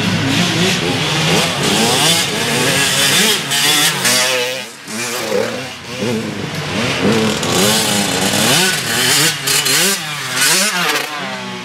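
Dirt bike engines revving up and down repeatedly, their pitch rising and falling as the riders accelerate and back off. One bike comes close near the end.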